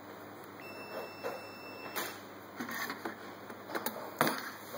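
Light scattered clicks and knocks as multimeter test probes and parts are handled on a workbench, more frequent in the second half. A faint steady high beep runs from about half a second in for about a second and a half, typical of a multimeter's continuity tester.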